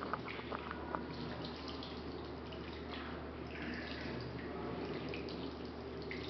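Tap water running and splashing into a ceramic washbasin as soapy hands are rinsed under it, with a few sharp clicks in the first second.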